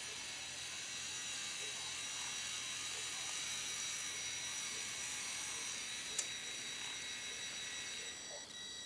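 Electric drive motors and plastic gears of a radio-controlled Bruder toy loader running with a steady high-pitched whine as it drives. There is one sharp click about six seconds in, and the whine drops away near the end.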